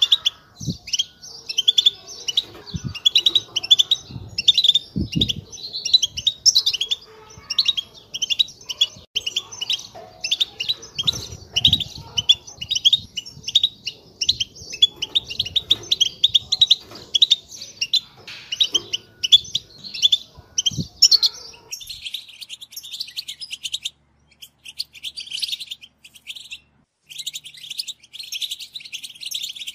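European goldfinches twittering and singing in a fast, continuous run of liquid chirps. A few low thumps sound in the first two thirds.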